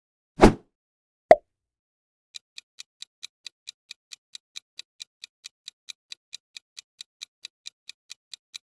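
A swoosh sound effect for the screen wipe, then a short pop, followed by a quiz countdown timer's clock-like ticking at about four ticks a second.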